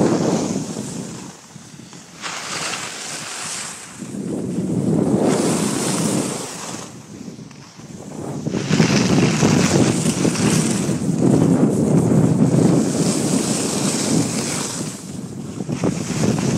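Wind rushing over the microphone of a camera carried by a skier heading downhill, mixed with the hiss of skis on packed snow. It swells and drops several times, dies down briefly about seven seconds in, then stays loud.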